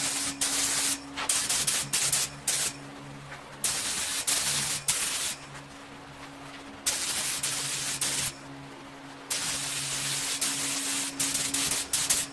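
Paint spray gun spraying white base coat in short bursts of a second or two, the hiss starting and stopping with each trigger pull, over a steady low hum.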